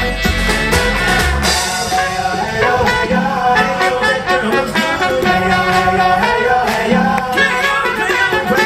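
Music with a singing voice over instruments and a steady beat; the deep bass drops away about a second and a half in.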